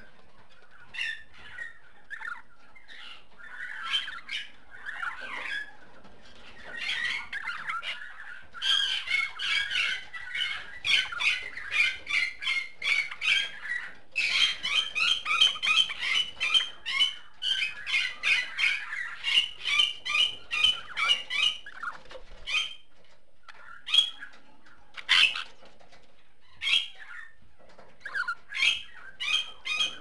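Budgerigar chattering and calling: scattered short chirps, then a long, fast run of sharp calls at about three a second from about a third of the way in to two thirds, then scattered calls again.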